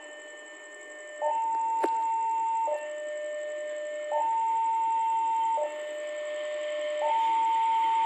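Electronic two-tone warning alarm alternating steadily between a high and a low tone, each held about a second and a half, as a diesel train approaches; the train's running noise grows faintly toward the end, and there is one sharp click about two seconds in.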